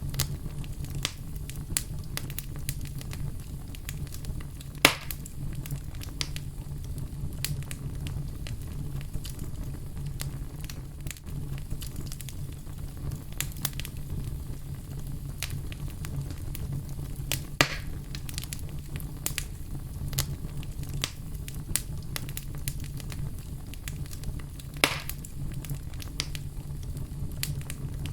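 Wood fire burning with a steady low rumble and frequent small crackles, with three louder pops about 5, 18 and 25 seconds in.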